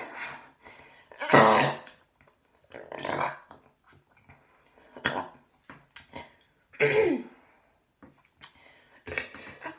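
A woman belching loudly several times in a row, separate burps with short gaps between them. The loudest comes about a second and a half in, and one near the end of the run drops in pitch.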